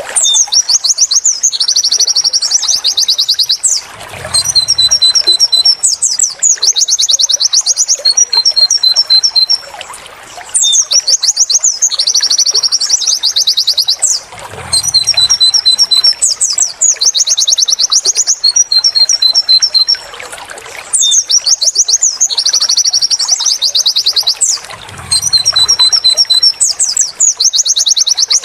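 White-eye (pleci) song: rapid, high-pitched 'wit wit' notes and trills, played as a bird-training loop that repeats about every ten seconds with a brief pause between phrases.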